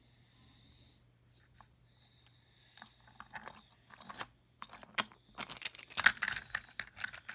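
Toy train engine knocking against wooden railway track and tunnel pieces as it is pushed and handled: a few sparse clicks about three seconds in, then a dense run of clicking and clatter over the last two seconds.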